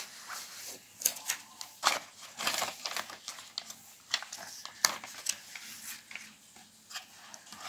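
Cardboard packaging and a paper instruction sheet being handled while an earphone box is unpacked: irregular rustling, scraping and light tapping of card and paper.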